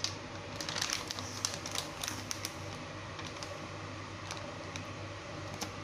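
Clear plastic bag crinkling and crackling as a bagged chicken is pushed down into a pot of water: a quick flurry of crackles in the first couple of seconds, then a few scattered single crackles, over a low steady hum.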